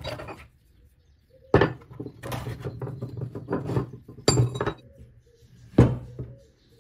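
Handling clatter: a heavy demolition hammer and its steel chisels lifted out of a hard plastic carry case and put down on a wooden table. There are several sharp knocks and rattles, the loudest about one and a half, four and a quarter and six seconds in.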